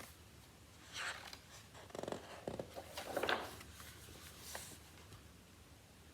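Faint paper rustling and small handling clicks as a picture book's page is turned, in several short bursts over a few seconds.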